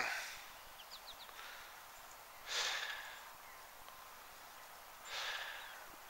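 Two faint breaths close to the microphone, about two and a half seconds apart, each a short rush that fades out. A few faint, very short high chirps come about a second in.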